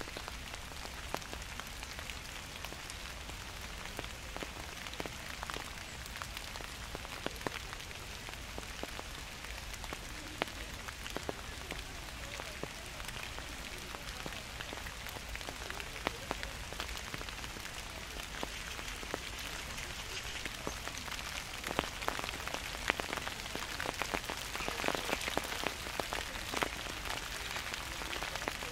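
Gentle rain falling steadily, with many separate drops ticking sharply on a nearby surface. The drop hits come thicker and a little louder near the end.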